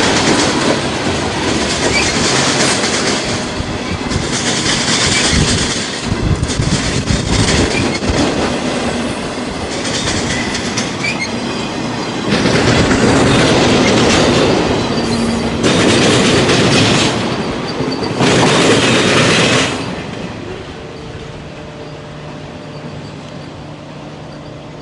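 Freight cars of a passing freight train rolling by, the wheels clacking over the rail joints, with several louder surges of wheel and rail noise. About twenty seconds in the sound drops off sharply to a much quieter steady hum.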